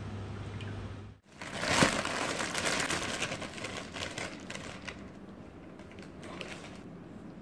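Crinkling of a Lay's potato-chip bag, boiled with an omelette inside, as it is pulled off the set omelette loaf. It starts a little over a second in, is sharpest just before two seconds and fades out by about five seconds.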